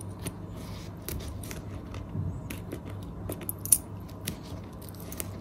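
A bunch of keys on a ring jingling and clicking in the hand while one key is pushed through the corner of a disposable face mask to pierce a hole. The light clicks come irregularly throughout.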